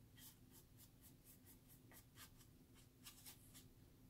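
Very faint, quick strokes of a paintbrush dabbing acrylic paint along the edge of a thin wooden cutout, about three to four light brushing sounds a second.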